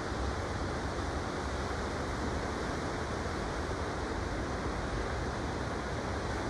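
Steady wash of low surf breaking on a sandy beach, with wind buffeting the microphone.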